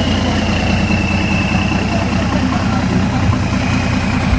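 Tour bus engine idling steadily, with a thin high whine that slowly falls in pitch during the first half.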